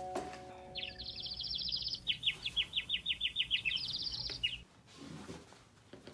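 Sound effect of a bird chirping in rapid high trills for about three and a half seconds. The pitch drops partway through, then jumps back up before the trill stops. It is the cartoon 'dizzy birds' effect that goes with a bump on the head.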